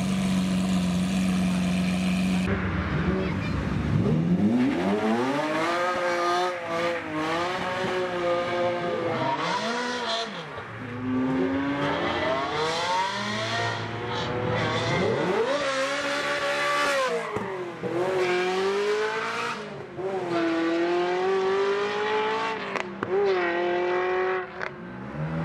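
Sports cars accelerating hard past one after another, among them a Ferrari 360's V8. Each engine note climbs with the revs and drops back at a gear change or as the car goes by. It opens with a steady low hum that stops suddenly about two and a half seconds in.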